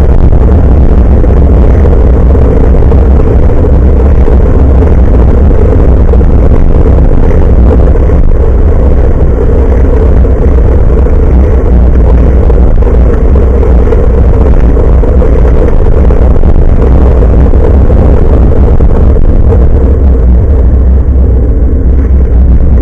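Steady wind rumble and road noise on the microphone of a handlebar-mounted Nikkei Extreme X6 action camera while cycling, very loud and overloading the recording, with a constant low drone.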